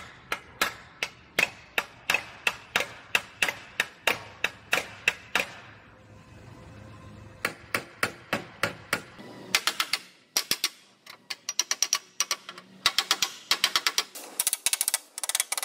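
Hand hammer striking a Jeep Wrangler's bent steel front fender to straighten the metal: sharp, ringing metallic blows about two to three a second, a brief pause about six seconds in, then quicker, lighter taps in clusters through the last six seconds.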